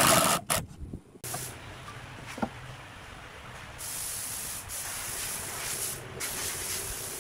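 A cordless impact driver runs a screw into a pine board and stops about half a second in. After a short pause, a soft steady hiss sets in partway through.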